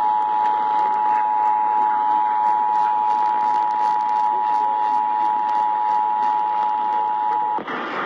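Emergency Alert System attention signal, the steady two-tone alarm of 853 and 960 Hz, heard through an AM radio's speaker with static hiss beneath it. The tone cuts off suddenly near the end.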